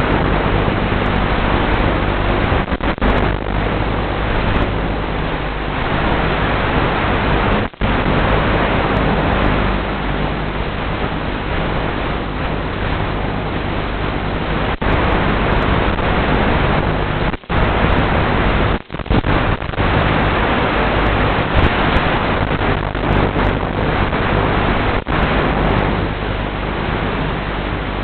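Loud, steady static hiss from a 5.8 GHz analog FPV video receiver carried on the goggles' recording, with a faint low hum beneath it. It cuts out briefly a few times.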